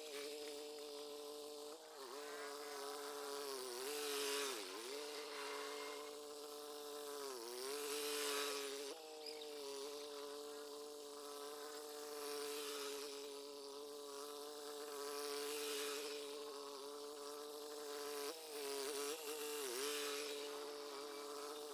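Tractor's diesel engine running steadily as it drags a harrow and a wooden levelling plank across a ploughed field, its buzzing note dipping briefly several times as it takes load.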